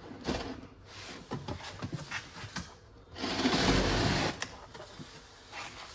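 Cardboard box and packaging being handled: scattered light clicks and knocks, then about three seconds in a loud scraping rustle lasting a little over a second as something is dragged out of the box.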